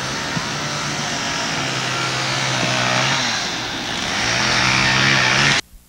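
An engine running, its pitch dipping and then rising again, cut off abruptly near the end.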